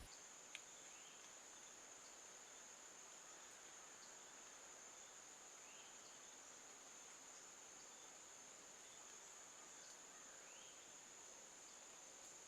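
Insects keeping up a steady, high-pitched trill in the woods. There is one faint click about half a second in, and a few faint, short rising calls.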